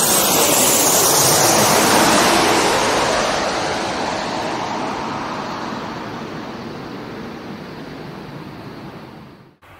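Jet airliner on landing approach passing low overhead: loud jet engine and rushing-air noise for about two seconds, then fading steadily as the plane moves away. The sound cuts out briefly near the end.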